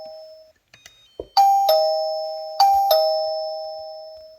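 The plug-in chime unit of a Kogan Smarter Home Smart Video Doorbell 2 Pro sounds its ding-dong twice as the ring button is pressed. Each time it plays a higher note and then a lower note, and the notes ring out slowly. A soft knock comes just before the first chime.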